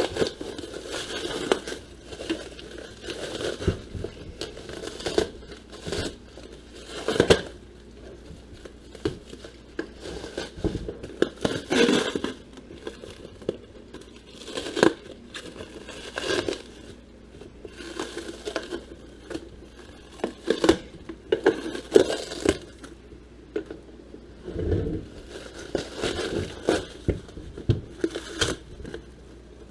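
A shipping box being cut open and unpacked: cardboard and packing material tearing and crinkling, with irregular knocks and clicks as things are handled.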